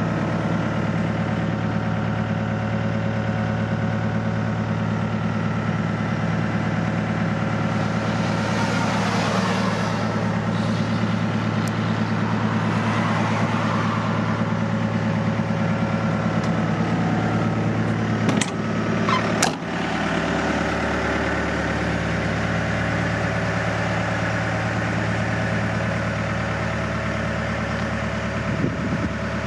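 Takeuchi TB180FR excavator's diesel engine idling steadily. Two sharp knocks about a second apart come roughly two-thirds of the way through.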